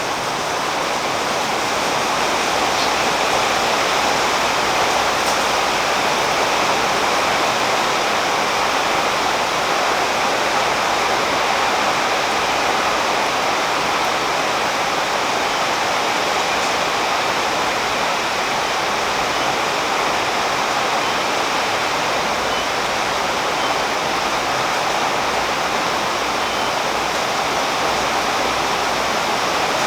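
Steady, heavy rain falling on a tree's leaves: a dense, even hiss that holds level throughout.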